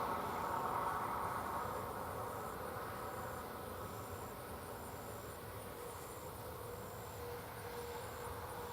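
Insects chirping high in a steady rhythm, a little more than once a second, over the distant steady hum of tractors and peanut pickers running in the field, which slowly fades.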